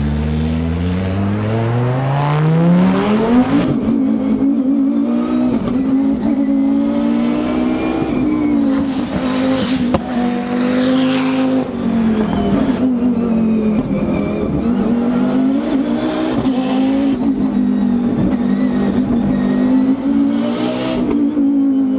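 Volvo S60 race car's engine revving hard as it pulls away, its pitch climbing steeply over the first few seconds. It then stays at high revs for the rest of the run, the pitch dipping and rising a little.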